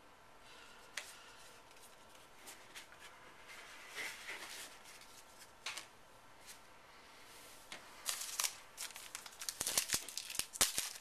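Baseball trading cards being handled and slid against one another, with faint scattered clicks. About eight seconds in, a run of dense crinkling and crackling as a sealed card-pack wrapper is picked up and worked open.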